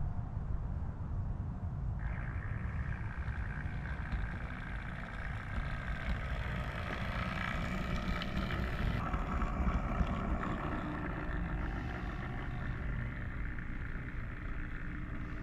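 Model railway locomotive running on the track: a steady low rumble, joined about two seconds in by a higher whine.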